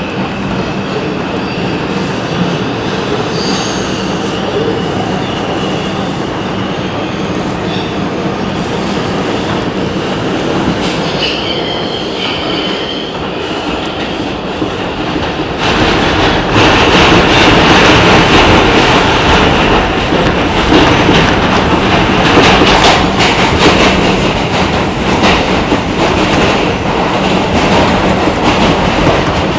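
R142 subway train running through a tunnel, heard from inside the car: steady rumble of wheels on the rails, with a brief high wheel squeal about twelve seconds in. About halfway through it grows louder, with rapid clicks and rattling over the track.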